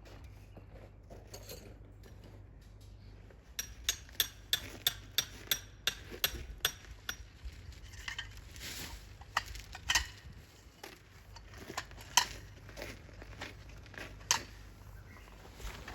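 Cooking utensils and dishes being handled: a quick run of sharp knocks about three a second, then scattered clinks.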